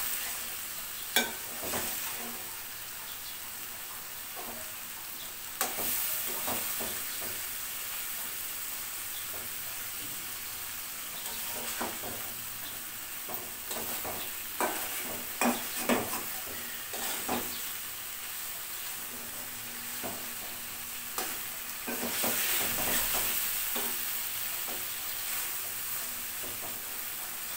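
Fish pieces and spice paste sizzling in an aluminium karai as a spatula stirs them, with scattered clicks and scrapes of the spatula against the pan. The masala is being fried down (koshano) with the fish. The sizzle grows louder for a couple of seconds late on.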